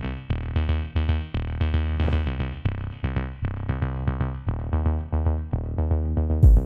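Electronic intro music: a quick pulsing synth pattern of short notes, about four or five a second, over a deep bass and drum-machine beat, with a heavy bass hit near the end.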